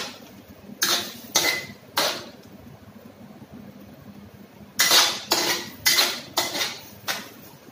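Metal spatula scraping and knocking against a stainless-steel wok as a stir-fry is stirred: three strokes about half a second apart, a pause of nearly three seconds, then about six quicker strokes. The stirring works freshly added starch slurry into the sauce to thicken it.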